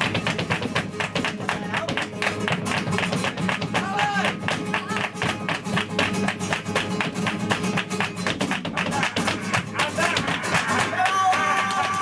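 Live flamenco soleá: flamenco guitar playing with dense, sharp percussive strokes throughout. A singer's voice comes in briefly about four seconds in, and a held sung note comes in near the end.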